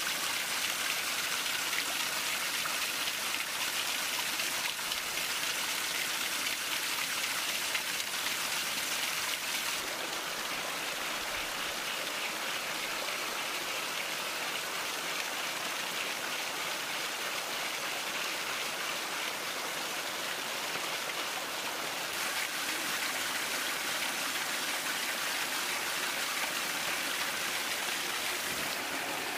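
Water jetting from a nozzle on a bamboo pipe onto a small homemade water-turbine wheel, spraying and splashing onto the ground: a steady rushing hiss that shifts slightly in tone about ten and twenty-two seconds in.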